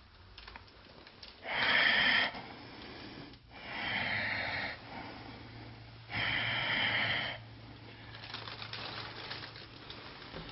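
Three long, breathy exhales close to the microphone, each lasting about a second and coming a couple of seconds apart, over a faint low hum.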